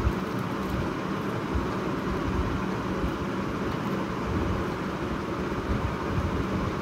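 Steady background noise: a constant, even hiss with a faint low hum, with no speech.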